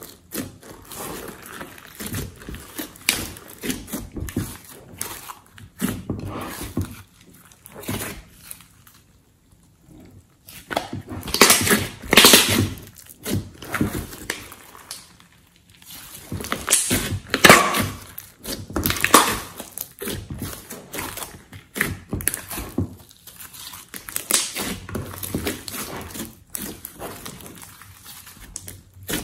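A large batch of glossy mixed slime being squeezed, folded and stretched by hand in a glass dish: irregular sticky squishing and squelching, with louder clusters of crackly squelches about eleven to thirteen seconds in and again around seventeen to nineteen seconds.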